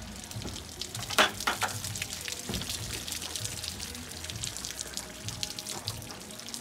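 Water dripping and trickling off a wet cutting board while a knife works through stingray flesh, with many small clicks and a sharp knock a little over a second in.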